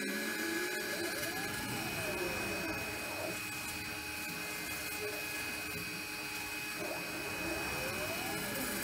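DIY 5-axis CNC router running over an XPS foam block: a steady high whine, with stepper motor tones that glide up and down in pitch several times as the axes speed up and slow down to swing and reposition the head.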